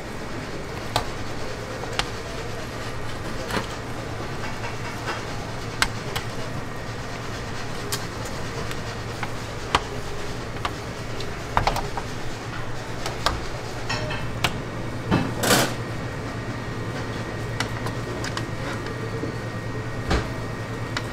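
Restaurant kitchen ambience: a steady low machine hum with scattered sharp clicks and knocks, and a short noisy burst about fifteen seconds in.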